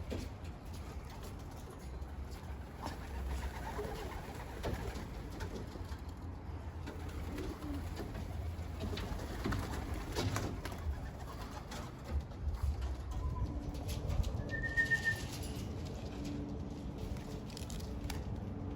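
Racing pigeons cooing, over a steady low rumble, with one short high chirp about fifteen seconds in.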